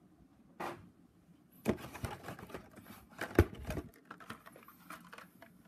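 Hot Wheels cars in their card-and-plastic blister packs being handled: a run of clicks, rustles and knocks, the loudest knock about three and a half seconds in.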